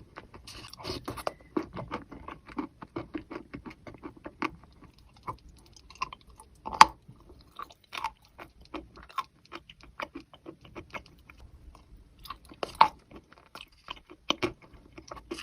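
Close-up chewing and crunching of wet chalk in thin clay paste: a fast, irregular run of crisp crunches, with two louder bites, one about seven seconds in and one near the end.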